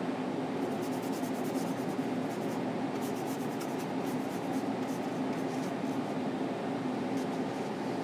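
Steady background hum with a constant low drone, overlaid by faint, light scratching ticks in the first half and again past the middle.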